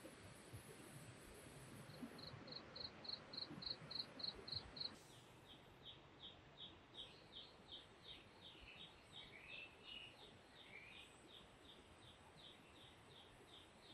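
Faint forest ambience with an insect chirping in a steady rhythm, about four short high chirps a second, and a few brief whistled calls around the middle.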